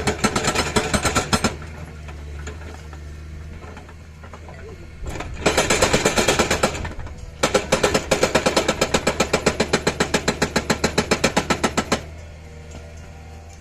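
Komatsu excavator's hydraulic breaker hammering in three bursts of rapid, even blows, several a second, with the excavator's engine running steadily between them. The longest burst, about four and a half seconds, comes in the second half.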